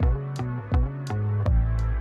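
Background electronic music with a steady beat: bass notes, sustained melody and regular drum hits.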